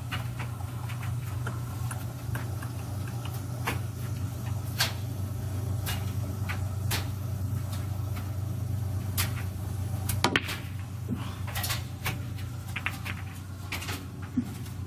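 Billiard balls clacking sharply now and then during a pool game, a dozen or so separate knocks at irregular intervals, over a steady low hum.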